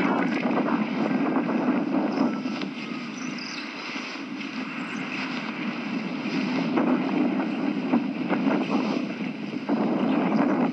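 Wind buffeting the microphone of a paraglider pilot's action camera in flight, a steady rough rushing that rises and falls in strength during a low, fast downwind landing approach.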